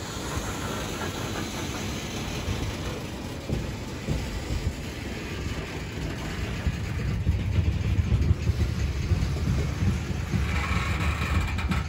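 Norfolk Southern open-top coal hopper cars rolling slowly past, their steel wheels giving a steady low rumble on the rails that grows louder about seven seconds in.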